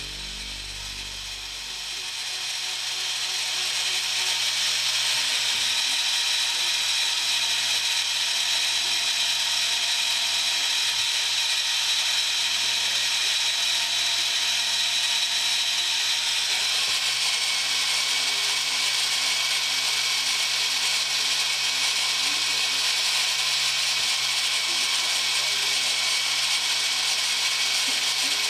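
TRAUB TNL18 sliding-headstock CNC lathe machining a brass part: a steady mechanical whir of the spindle and tools with a hiss of cutting. The pitch of the running shifts about halfway through.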